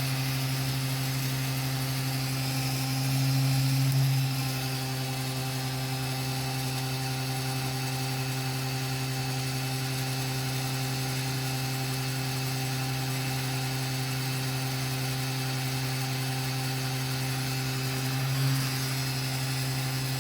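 An 18.5-amp electric heat gun switched on, its fan motor running with a steady hum and rush of air. The sound swells briefly about three seconds in and again near the end.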